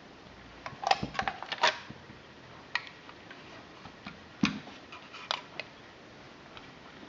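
Small sharp clicks and knocks of a hard plastic View-Master Model D viewer being handled and set down on a table. There is a quick cluster of them about a second in, then a few single ones spread over the rest.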